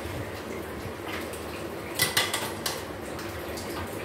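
Kitchenware clinking: a quick cluster of sharp clicks and clatters about two seconds in, over a steady low room hum.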